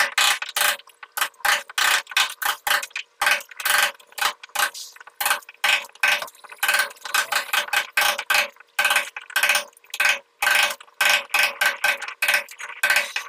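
Hand hammer striking a steel chisel, chipping a groove into a concrete wall: a fast, uneven run of ringing metal-on-metal blows, several a second.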